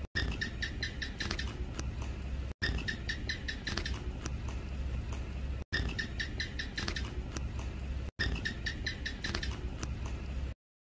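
House gecko (Hemidactylus) calling: a series of quick, sharp chirps at about three to four a second, in runs of two to three seconds that break off briefly and start again, over a steady low hum.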